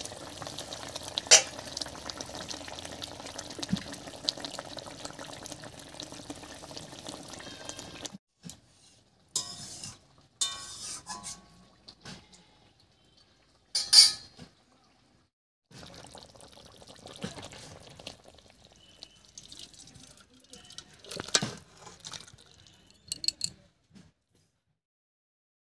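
Fish curry bubbling in a pot, with clinks of the metal lid and scrapes of a metal spatula against the pot. About the first third is a steady bubbling with a few sharp clinks. The rest comes in short separate stretches with silent gaps between, and the loudest clanks fall about halfway through.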